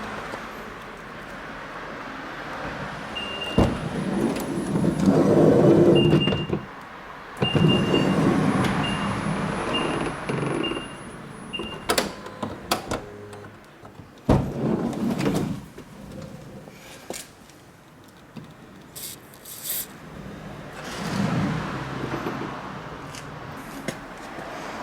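Left power sliding door of a Nissan Serena C27 e-Power running along its track, with a string of short high warning beeps and sharp latch knocks. This door has started to creak.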